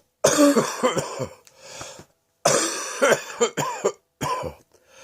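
A man's chesty cough: three bouts of coughing, each several coughs in quick succession. The first starts just after the start, the second about two and a half seconds in, and a shorter one comes about four seconds in. It is a cough he says is now definitely in his chest.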